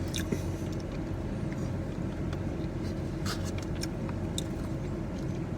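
Steady low background hum, with a few faint clicks and small taps from eating and handling food and drink.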